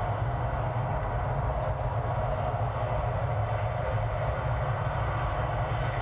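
Steady low rumble with a noisy band above it, the sound of passing vehicle traffic in an urban soundscape.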